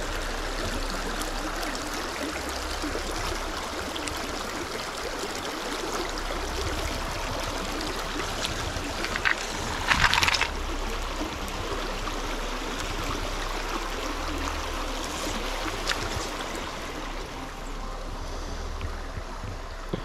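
Small freestone mountain stream flowing over rocks: a steady rush of running water, with a short, louder burst of noise about ten seconds in.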